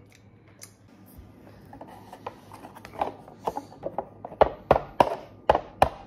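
Wooden chopsticks knocking against instant-noodle cups: a few soft clicks, then from about halfway a run of sharp clacks, about three a second.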